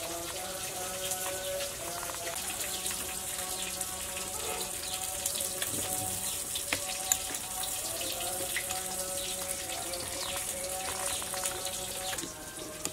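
A metal spoon stirring liquid sauce in a small glass bowl, with light splashing and small clinks against the glass, one sharper clink about seven seconds in. Soft background music plays under it.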